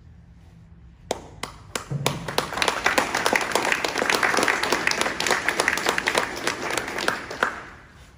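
A small group of people applauding: a few scattered claps about a second in, building into steady clapping that fades out near the end.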